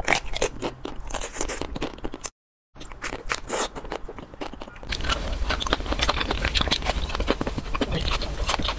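Eating sounds of frozen ice cream bars being bitten and chewed: a quick run of small crunches and crackles. It breaks off for a moment a little over two seconds in and grows fuller and denser from about five seconds in.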